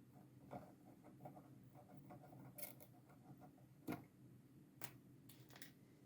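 Faint, scattered clicks and light ticks of small plastic parts being handled on a PS5 DualSense controller under repair, with one sharper click about four seconds in.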